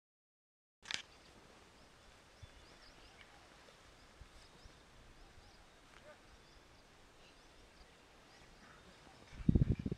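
Silence for about the first second, then faint outdoor ambience with scattered faint bird chirps. Near the end comes a brief low rumble, the loudest sound in the stretch.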